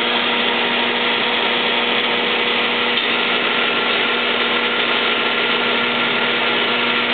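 Espresso machine's pump running during a shot extraction, a loud, even hum with a steady tone that does not change, as the coffee streams from the double spout.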